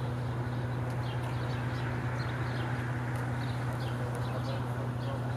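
Level-crossing warning signal sounding in a steady repeating rhythm while the red lights flash and the barriers are down, over a steady low hum.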